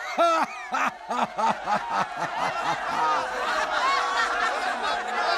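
Laughter: one voice in a quick run of short ha's in the first couple of seconds, then many voices laughing and chattering together.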